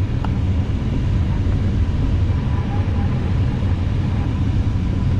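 Steady rush of airflow around a glider's canopy and fuselage, heard from inside the cockpit, with a faint steady high tone underneath.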